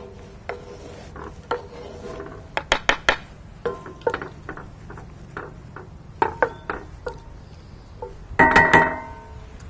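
Metal cookware and utensils clinking and clanking in a series of short knocks, with one louder ringing metallic clang about eight and a half seconds in.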